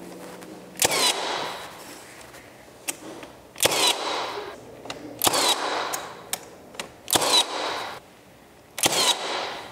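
Cordless 15-gauge finish nailer driving nails into thick trim moulding: five loud sharp shots about one and a half to two seconds apart, each with a short fading tail, with a few faint clicks of the tool being set between shots.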